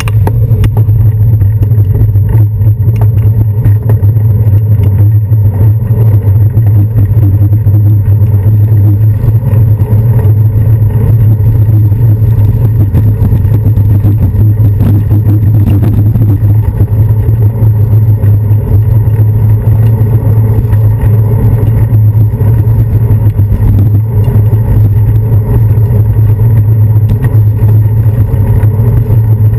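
Loud, steady low rumble of wind and road vibration on a handlebar-mounted camera as a bicycle rides along a city street, with passing traffic underneath.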